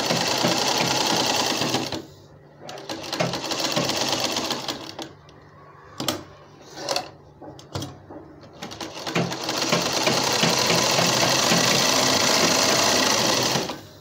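Electric sewing machine stitching a seam in runs: a steady run that stops about two seconds in, a shorter run, then a few brief clicks and short bursts while the fabric is turned at a corner, and a longer steady run from about nine seconds that stops just before the end.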